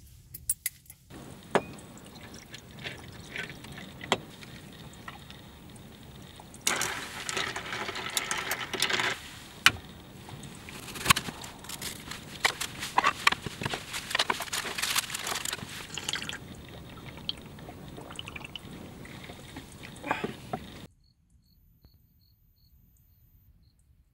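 Liquid being poured, with scattered sharp clicks and knocks. It is loudest for a couple of seconds in the middle and cuts off abruptly near the end.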